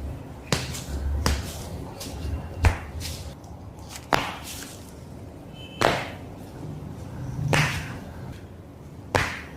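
Sharp cracks and knocks during a chiropractic adjustment, about eight of them spaced irregularly, the loudest about two and a half seconds in, some with a short rasping tail.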